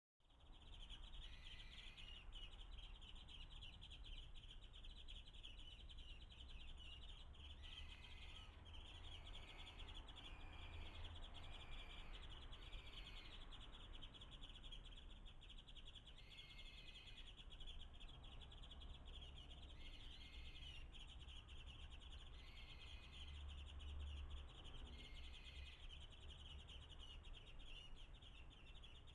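Faint short bird chirps, repeated every second or few, over a steady high insect buzz.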